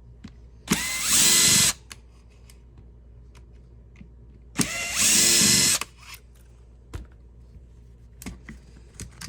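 Cordless power driver backing out two Phillips-head screws from an airsoft rifle's pistol grip: two short runs of about a second each, a few seconds apart, the motor pitch rising and falling.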